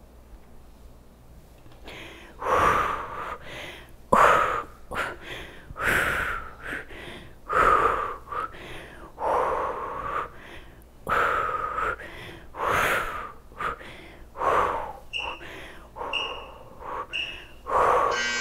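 A woman breathing hard from exertion during a squatting side-bend exercise: a loud, rhythmic breath about every second to second and a half.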